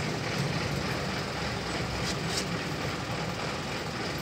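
Steady low engine rumble of a vehicle idling, typical of a truck's diesel engine, with a couple of faint clicks about two seconds in.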